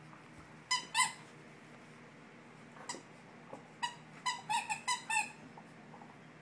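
Short, high-pitched squeaks during play between a Portuguese water dog puppy and an older dog. There are two about a second in and a fainter one near three seconds, then a quick run of about six just after four seconds.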